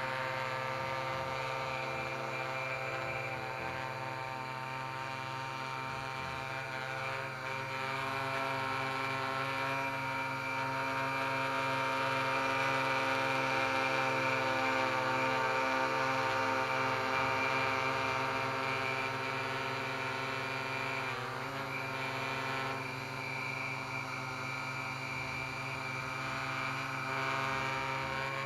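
Homemade quadcopter's four electric motors and propellers buzzing in a hover, a layered whine of several steady pitches. The pitch wavers briefly about three-quarters of the way through as the throttle shifts.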